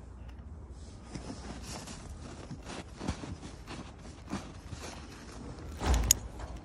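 Snow crunching and scuffing in irregular bursts as a puppy burrows its muzzle and paws into a deep snowbank, with a louder muffled bump and crackle near the end.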